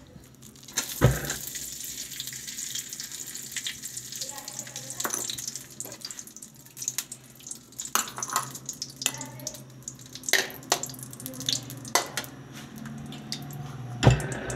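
A lump of ghee drops into a hot steel pan about a second in and sizzles steadily as it melts. A few sharp clinks of a steel ladle against the pan are heard, with a louder knock near the end.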